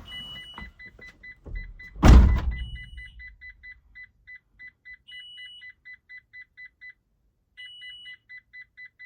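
A van's electronic warning beepers with the gear in reverse: short pips about four a second, with a longer, higher beep every two and a half seconds, pausing briefly near the end. About two seconds in, a single loud thump like a vehicle door shutting.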